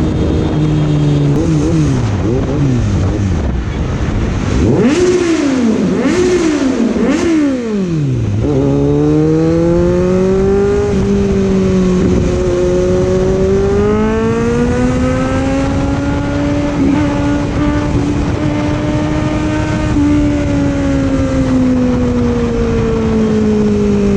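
Kawasaki Z900 inline-four engine accelerating hard through quick upshifts for about the first eight seconds, its pitch climbing and dropping each gear. It then pulls steadily at high revs, the pitch slowly rising and holding before falling away near the end as the throttle eases.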